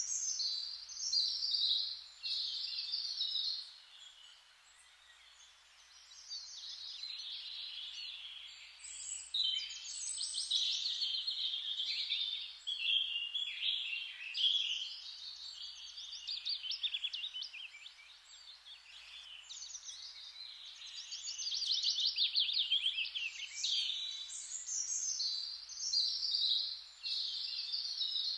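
Songbirds singing in rapid, warbling phrases that overlap one another, over a faint steady hiss. The song eases off about four seconds in and again a little past halfway, then picks up.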